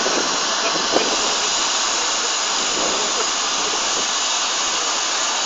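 LMS Stanier Black Five steam locomotive standing at the platform with steam escaping in a loud, steady hiss.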